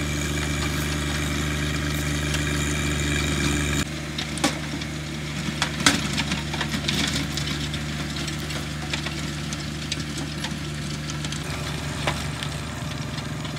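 John Deere 1025R subcompact tractor's three-cylinder diesel engine running steadily under load while it pulls a rear rotary tiller through the garden soil. The engine note changes abruptly about four seconds in, and a few sharp knocks stand out above it.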